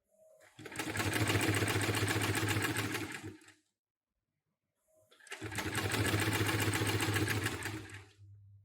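Hi-Tech 733 extra-heavy-duty industrial sewing machine, driven by a clutch motor, stitching in two runs of about three seconds each with a rapid, even rhythm. Each run starts and stops abruptly, with a pause between them.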